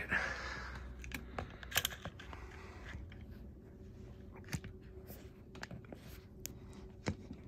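Handling noise from a phone camera being moved and set in place: faint rubbing with scattered small clicks and taps.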